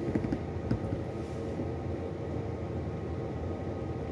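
Steady low mechanical hum filling the room, with a few faint taps in the first second.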